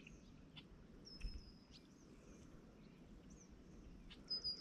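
Quiet pond-side ambience with a bird's thin, high whistled call held for about half a second, twice: about a second in and again near the end. Short faint chirps sound in between.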